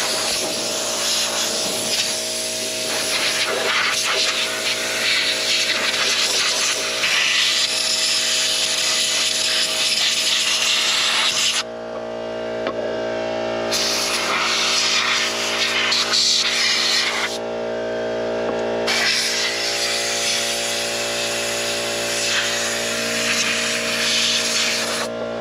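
Compressed-air blow gun blasting a loud, steady hiss, cut off twice for a second or two as the trigger is let go. A steady hum runs underneath.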